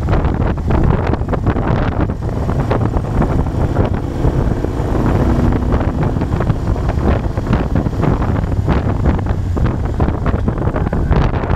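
Moto Guzzi Bellagio's V-twin engine running steadily while the motorcycle is ridden, mixed with wind rushing over the microphone.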